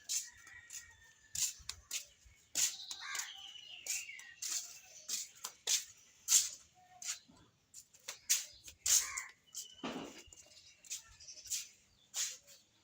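Birds calling outdoors, with short whistled calls and crow-like caws, among many short sharp clicks and taps that come every half second or so.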